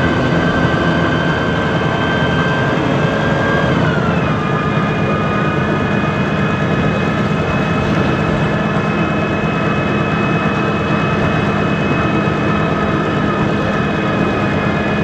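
MAN Lion's City G CNG articulated bus, with its MAN E2866 gas engine and Voith gearbox, running under way. Its whining tones slide down in pitch about four seconds in, then hold steady.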